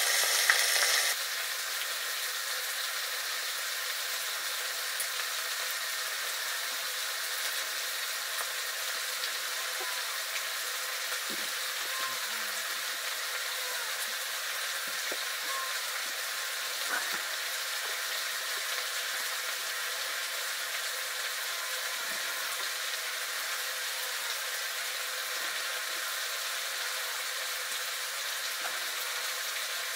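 Pork curry frying in a pan: a loud sizzle for about the first second, then a steady, quieter sizzle with a few faint clicks.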